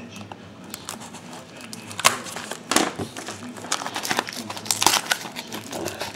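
Plastic shrink-wrap on a sealed trading-card box crinkling and tearing as it is poked open with a pen: irregular sharp crackles, the loudest about two, three and five seconds in, among softer rustling.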